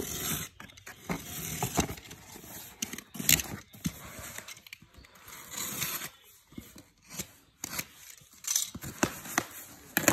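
Packaging being opened and handled by hand: irregular rustling and crinkling with scattered sharp clicks and taps.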